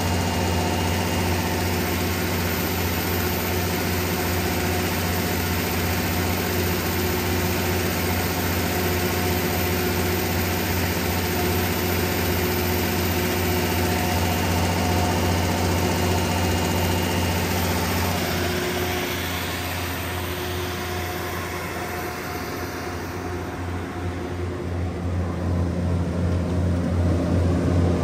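John Deere 6068HFG85 six-cylinder diesel of an MTU DS180 generator set running steadily at 1800 rpm under about a 180 kW load, a low, even drone. About two-thirds of the way through the sound dips and dulls, then grows louder again near the end.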